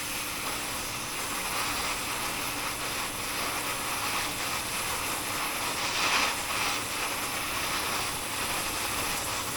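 Oxy-fuel heating torch flame burning steadily with a continuous hiss, playing on a steel bar to heat it for bending. It swells briefly about six seconds in.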